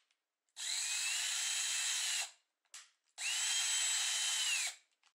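Small electric screwdriver motor running twice, about a second and a half each time, its whine rising as it spins up, holding steady, then dropping as it stops, while it turns a circuit breaker's terminal clamp screw.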